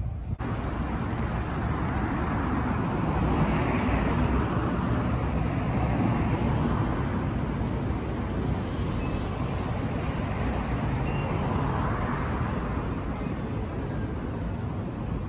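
Road traffic noise: a steady rumble of vehicles with two cars passing, swelling and fading about four seconds in and again near twelve seconds in.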